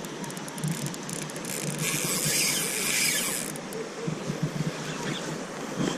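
Spinning reel's drag clicking and buzzing as a hooked fish pulls line off against it, a run of scattered clicks becoming a continuous high buzz for about a second and a half in the middle.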